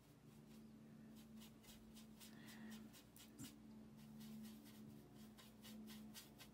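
Faint scratching and ticking of a watercolour brush working paint on an enamel tray palette, over a low steady hum.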